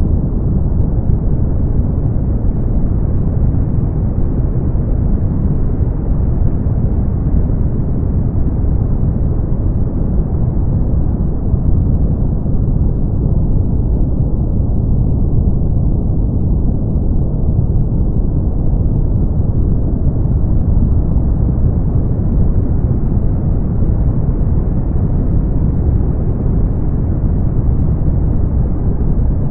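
Brown noise: a steady, deep rushing hiss with its weight in the low end, thinning out toward the top, with no pattern or events.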